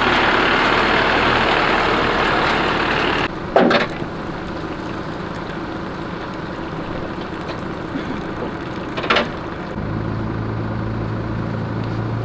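A motor vehicle engine running, with the sound changing abruptly about three seconds in. Two short loud knocks follow, one soon after the change and one about nine seconds in, and then a steady low engine hum.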